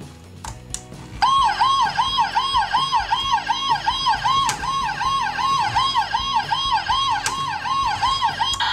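Toy police car's electronic siren: a couple of clicks, then from about a second in a fast rising-and-falling wail that repeats about two and a half times a second, stopping just before the end.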